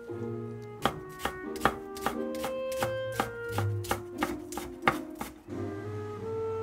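Chef's knife chopping green onion on a wooden cutting board: about a dozen sharp cuts in a quick, uneven run that stops a little past five seconds in, over background instrumental music.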